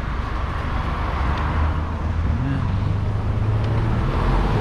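Car driving along, with wind noise rushing over the microphone on top of a steady low road rumble.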